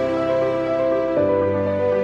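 Background music: slow held chords over a low bass note, shifting to a new chord about a second in.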